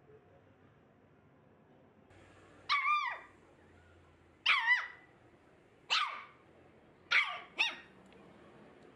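Toy poodle barking: about five short, high-pitched barks a second or so apart, each dropping in pitch, the last two close together.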